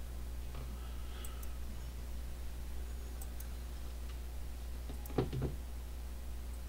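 Steady low electrical hum with a few faint clicks, and a louder short clatter of two or three knocks about five seconds in.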